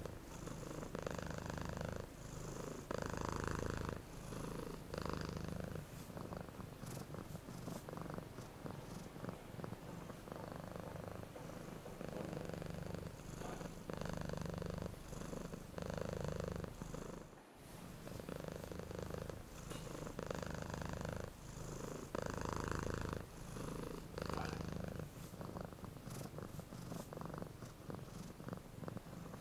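Domestic cat purring steadily close to the microphone: a low rumble that swells and eases with each breath in and out. There is a momentary break about halfway through.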